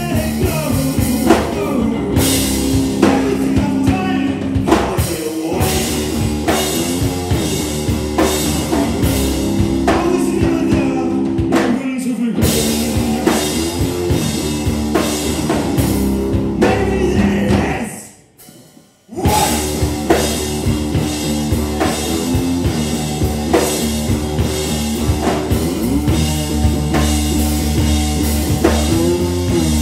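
Live rock band playing: electric guitar and drum kit with sung vocals. A bit past halfway the whole band stops dead for about a second, then comes back in.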